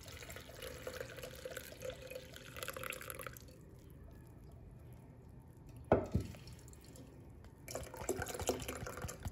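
Hot milk tea poured from a pan through a mesh tea strainer into a steel mug, splashing steadily for about three seconds and then stopping. A single sharp knock about six seconds in, then softer liquid and handling noises near the end.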